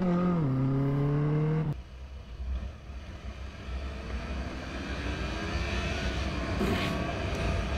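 Motorcycle engine running, heard from a helmet camera, at a steady pitch until it cuts off abruptly about two seconds in. Then a quieter stretch of wind and road noise, with the engine's pitch rising slowly as the bike accelerates.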